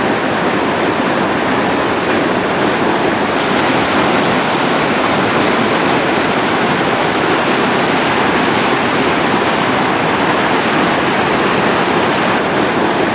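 North St Vrain Creek's whitewater cascades rushing, a loud, steady wash of falling and churning water.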